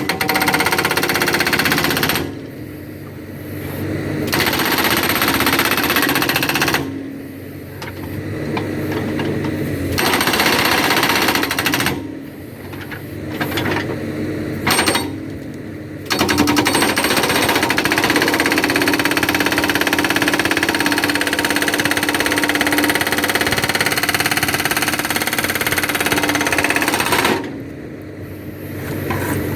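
Backhoe-mounted hydraulic rock breaker hammering in runs of several seconds, stopping about five times for a second or two, the longest run lasting about ten seconds. The backhoe's engine keeps running through the pauses.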